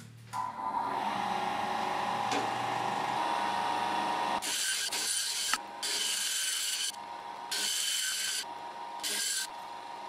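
Benchtop bandsaw switched on and running with a steady hum, then cutting a plastic 3x3 Rubik's cube: four short harsh rasping passes, each about a second long, with brief pauses between as the cube is fed into the blade.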